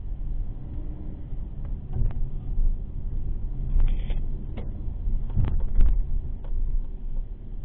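Car road noise heard inside the cabin while driving: a steady low rumble, with a handful of short clicks and knocks, the loudest a little before six seconds in.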